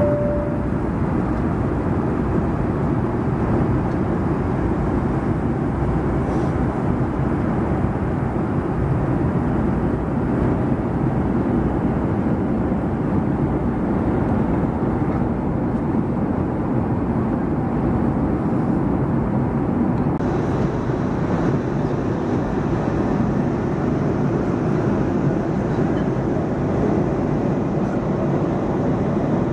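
Steady drone and rush of a Boeing 757-200's engines and airflow heard inside the passenger cabin.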